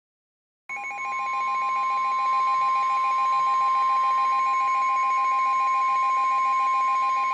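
NOAA Weather Radio warning alarm: a single steady high tone of about 1050 Hz starting abruptly under a second in, with a fainter, rapidly pulsing beep alongside it. It is the alert tone that announces a special marine warning broadcast.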